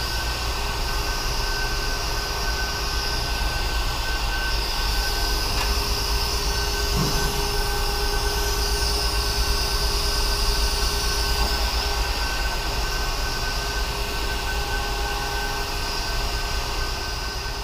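Steady mechanical whirring hum over a constant low rumble, unchanging throughout, with a soft knock about seven seconds in.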